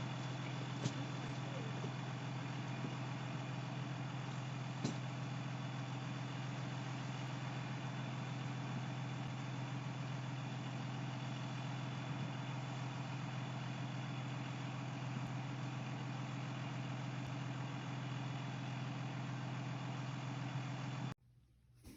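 A steady low mechanical hum with hiss, like an engine idling, with two faint clicks near the start; it cuts off abruptly about a second before the end.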